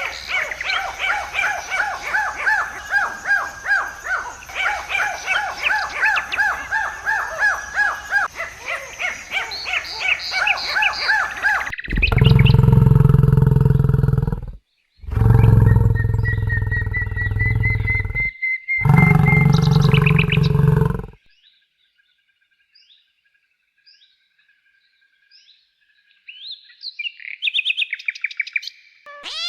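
Rapid, repeated chirping calls from an animal, several a second, each falling in pitch. About halfway through they give way to loud, low rumbling noise in three stretches with short breaks, then near silence with a few faint chirps.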